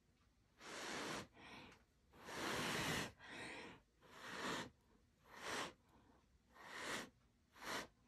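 A person blowing hard, in repeated puffs of breath, onto wet fluid acrylic paint to push it into blooms: about eight short rushes of air, roughly one a second, with breaths drawn between them. The third, about two seconds in, is the longest and loudest.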